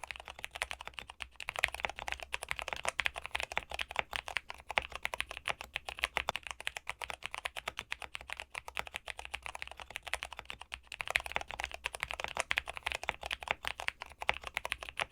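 Typing on a Zuoya GMK67 mechanical keyboard fitted with Cherry MX Purple tactile switches, Cherry-profile keycaps and two layers of tape on the PCB: a rapid, steady stream of keystrokes, with brief lulls about a second in and again near eleven seconds.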